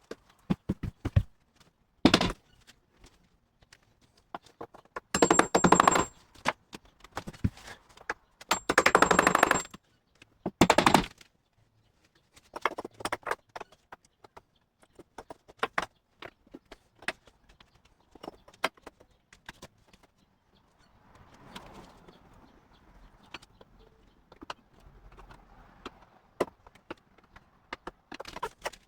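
A cordless power driver running in short bursts of rapid pulses, about four times in the first half, with a thin high whine in two of the longer bursts. Scattered clicks and knocks come between the bursts and through the second half.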